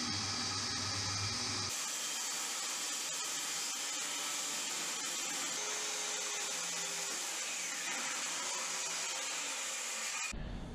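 Circular saw running steadily as it rips along a hickory board.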